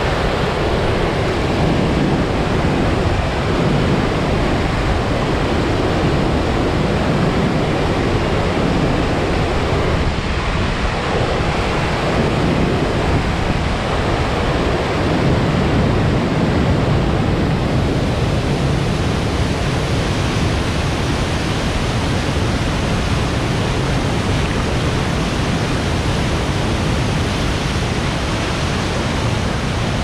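Steady, loud rushing of a waterfall and rapids on a river swollen with snowmelt, the water pouring and foaming over granite ledges.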